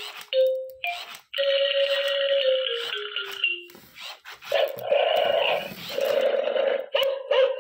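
Toy robot dog's small built-in speaker playing electronic sound effects: a beeping tune of held notes that steps down in pitch, then buzzier, rougher effects in the second half.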